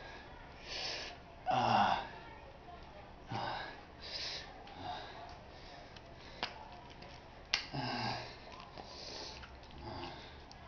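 A man's strained grunts and forceful breaths, several times, as he squeezes a spray can with his arm and hands, with two sharp clicks from the can a little past the middle.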